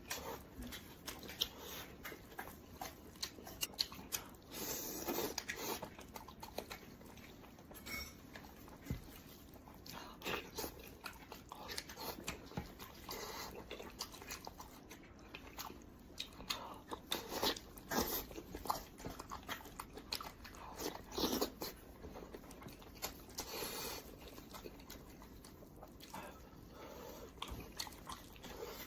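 Close-miked chewing and biting of roasted pork head, heard as irregular short clicks and bursts.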